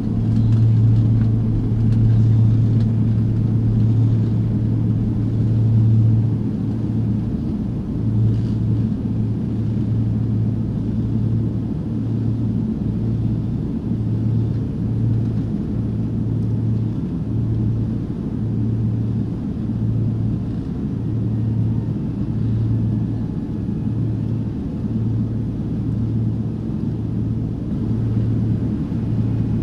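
Cabin noise of a Beech aircraft at takeoff power during the takeoff roll and climb-out: a loud steady low engine drone over a rumble. About six seconds in, the drone begins to pulse roughly once a second.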